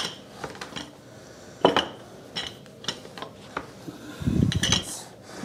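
Wooden rolling pin rolling out pizza dough on a wooden board: scattered sharp clicks and knocks as the pin shifts on the board, with a brief low rumble about four seconds in.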